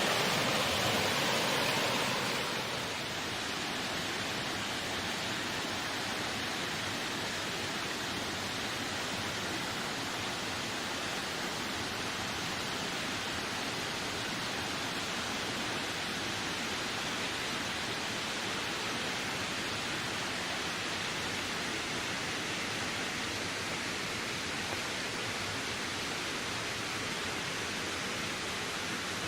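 Wind rushing steadily as an even, unbroken noise, a little stronger for the first couple of seconds before easing to a constant level.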